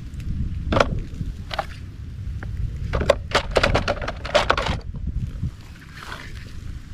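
Plastic toy vehicles being handled, a string of short clattering knocks bunched about three to five seconds in, over a low rumble that fades after about five seconds.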